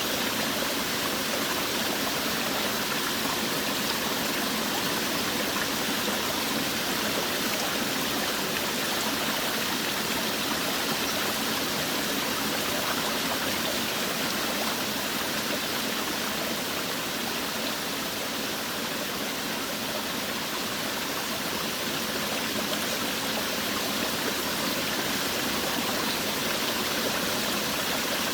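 Forest waterfall: water falling and rushing in a steady, even hiss, with no change in level.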